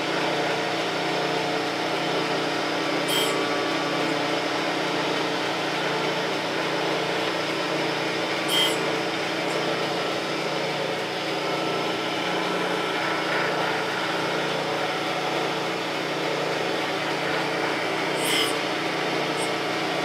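Landis surface grinder running steadily while its wheel takes light passes of a few thousandths over a high-speed steel tool blank. A short, high grinding hiss comes three times as the wheel crosses the steel.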